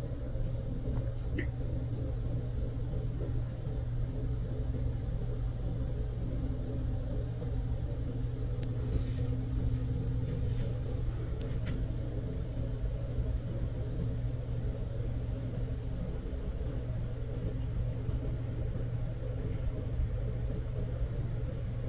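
A steady low hum or rumble, a mechanical drone with a constant pitch, with a few faint clicks near the middle.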